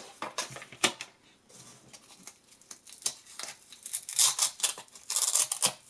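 Small clicks and rustles of handling, then a Velcro hook-and-loop strap being ripped apart twice, about four and five seconds in, each a short rasping tear.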